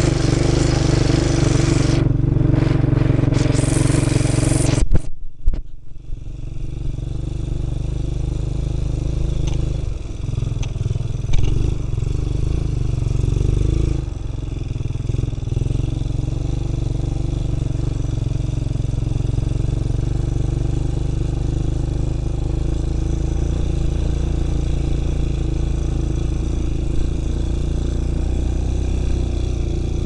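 Four-wheeler (ATV) engine running steadily as the quad is ridden along a rough, wet dirt track, with a brief break about five seconds in.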